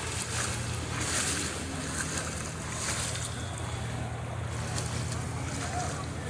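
Floodwater sloshing and splashing in surges about once a second, over the steady low drone of a vehicle engine moving through the water.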